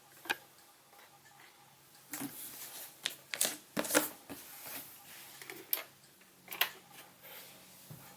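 Hands handling a new plastic fan heater and its packaging: scattered light clicks, taps and rustles at uneven intervals, with a faint steady hum underneath.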